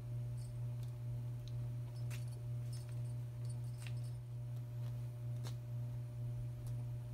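A steady low hum, with scattered light clicks and ticks of kittens' claws and paws on a hardwood floor and a wand toy as they play.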